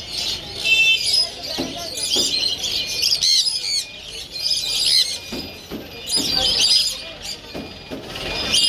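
Birds chirping and calling in a dense, overlapping chatter of quick, high-pitched chirps with no let-up.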